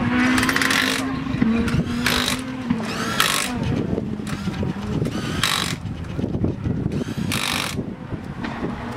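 A power tool on the rally car's front wheel runs in about five short bursts, the first and longest at the start. This fits an impact wrench working the wheel nuts. Underneath is a steady hum with a held engine-like tone for the first few seconds.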